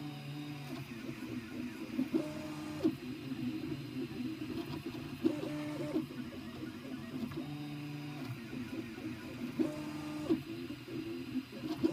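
Prusa i3 MK2 3D printer's stepper motors singing in tones that jump to a new pitch every second or so as the print head moves through its final layers, over a steady fan whir, with a few sharp ticks.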